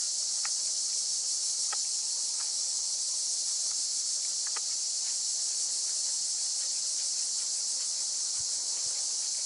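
Steady, dense, high-pitched chorus of summer insects, unbroken and even throughout, with a few faint short ticks in the first half.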